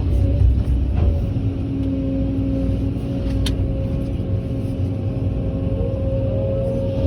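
Heavy diesel construction machinery running steadily: a deep engine rumble with a steady whine over it, and a single light knock about halfway through.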